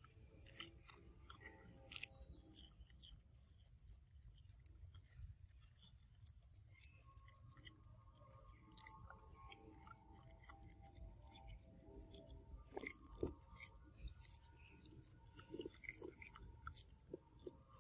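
Faint chewing of a macaque eating a piece of fruit, heard as scattered soft clicks and crunches.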